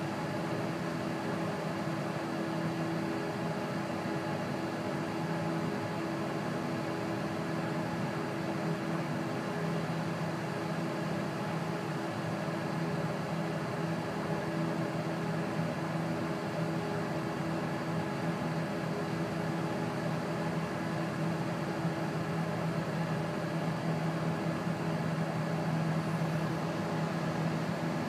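Bell 206 JetRanger-type helicopter's turbine engine running on the ground with the main rotor turning slowly, a steady whining hum with a little rotor wash, growing slightly louder near the end.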